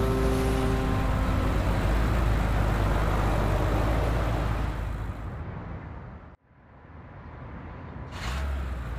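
Cartoon car-driving sound effect: a steady engine-and-road rush that fades away to nothing about six seconds in, then swells back up as a rising rush of noise just before the end.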